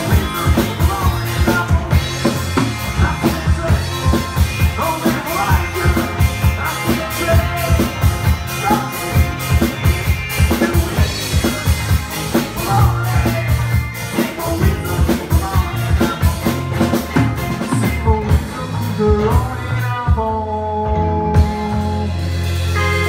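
Live rock band playing: a drum kit keeps a steady beat under electric and acoustic guitars. Near the end the drums stop for about a second while held guitar and bass notes ring on.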